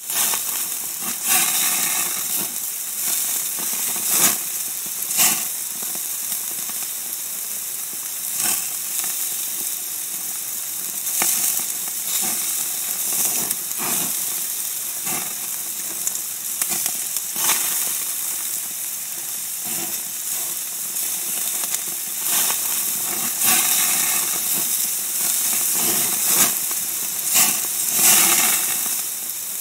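Marinated lamb slices sizzling as they fry, a steady hiss with louder spits and crackles every few seconds.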